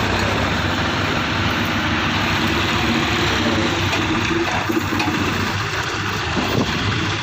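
John Deere 5310 tractor's diesel engine running steadily at low revs.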